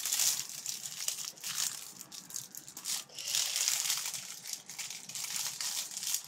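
Plastic sleeve crinkling and rustling irregularly as a rolled diamond painting canvas inside it is turned over and handled.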